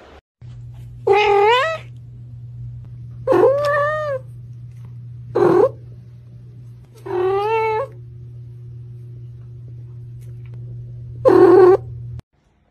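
A cat meowing loudly five times, each meow drawn out and rising then falling in pitch, over a steady low hum that cuts off near the end.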